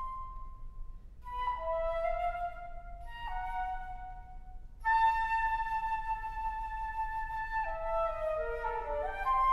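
Unaccompanied concert flute playing a slow twelve-tone passage: separate sustained notes with short breaks, then a long, louder held note from about halfway, followed by a quick falling run of notes into another held note at the end.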